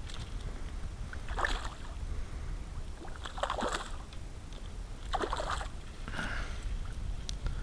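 Paddle strokes in water from a small fishing craft: four short swishes about every one and a half to two seconds, over a steady low rumble.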